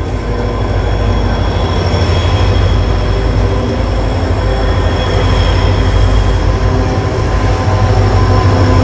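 A string of C class diesel-electric freight locomotives followed by a GL class passing close by, hauling a container train: a deep, loud engine rumble that builds over the first couple of seconds, with a steady high whine above it.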